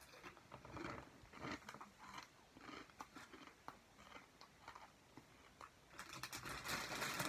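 Doritos tortilla chips being crunched and chewed, with a faint crisp crunch about every half second. Near the end comes a louder, denser crackle.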